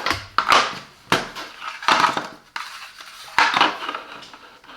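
Packaging being handled and pulled apart during unboxing, a series of short crinkling, rustling bursts about a second apart.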